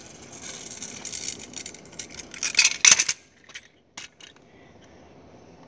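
Kick scooter rolling up over pavement close to the microphone as a steady hiss, then a loud clatter about two and a half seconds in and a few sharp clicks a second later.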